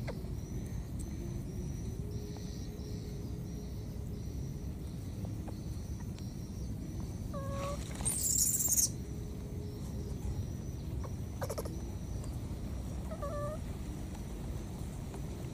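Baby macaques giving short squeaky calls, one about seven and a half seconds in and another near the end, with a brief harsh, hissing burst just after the first call that is the loudest sound here. A steady low rumble of background noise runs underneath.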